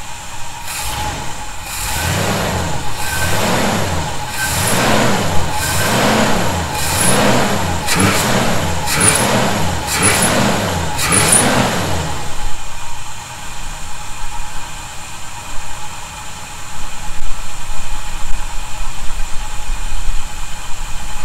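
1971 Chevy C10 pickup engine being revved in about ten quick throttle blips, roughly one a second, then settling back to idle about twelve seconds in. No vacuum-leak whistle is heard: snugging the bolts up may have cured the leak.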